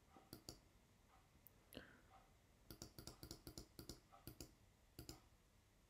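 Faint clicking at a computer. A few single clicks are followed, a little under three seconds in, by a quick run of a dozen or so clicks, then one or two more near the end.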